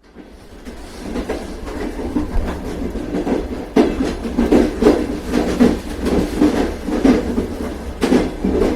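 Train running on the rails: a steady low rumble with the repeated clickety-clack of wheels passing over rail joints. It starts from a brief gap and grows louder about four seconds in.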